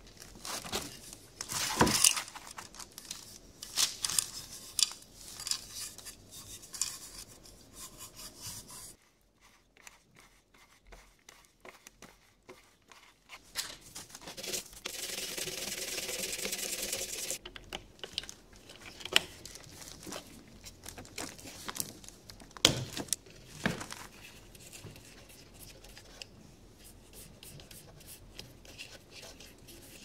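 Plastic parts of an old rotary dial telephone handled on a bench, with scattered clicks and taps. Midway comes a few seconds of steady scrubbing as a small brush cleans dirt off the dial.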